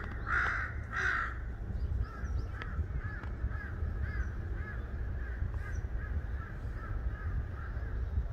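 Crow cawing: two loud, harsh caws in the first second or so, then a long run of quieter, short arching calls at about three a second. A steady low rumble sits underneath.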